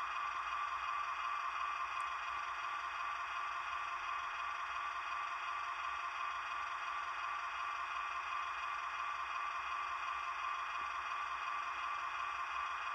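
The Dapol Class 68 model locomotive's DCC sound decoder plays a stationary diesel engine idle through the model's small speaker. It is a steady hum with several high, unchanging tones that do not vary for the whole stretch.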